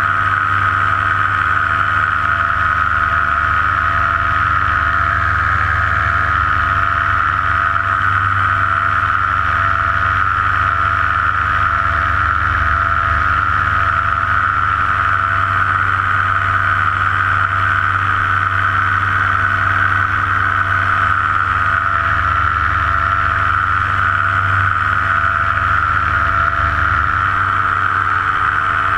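Paramotor engine and propeller running at a steady throttle in flight: an even, unchanging drone with a strong high hum over a low rumble.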